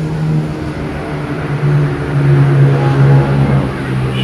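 A steady, low engine hum that grows louder a couple of seconds in and then eases.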